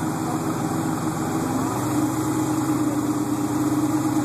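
Airboat engine and air propeller running steadily, a loud even hum that firms up and grows slightly louder about halfway through.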